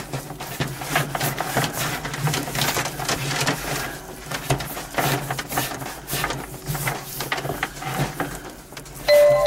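Electrical cables rustling, scraping and clicking against each other and a rubber bulkhead grommet as they are handled and pushed through, a fast irregular run of small clicks. Background music starts near the end.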